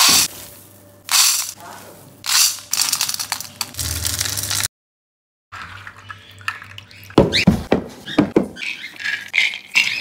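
Dry pulses and grains being poured and stirred by hand in a stainless steel bowl, rattling in several bursts. After a short break, softer wet clicking as the soaked, sprouting pulses are mixed by hand.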